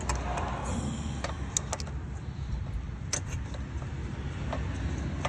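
Scattered small metallic clicks and taps from needle-nose pliers working the spring clamp and fuel hose at a small engine's carburetor, over a steady low rumble.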